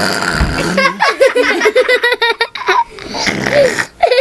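Young boys laughing hard in a quick run of ha-ha-ha, breaking off briefly about three seconds in and starting again. It opens with a short low rasping noise in the first second.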